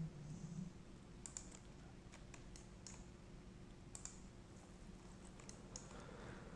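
Near silence with faint, scattered clicks of a computer mouse, about a dozen spread over several seconds.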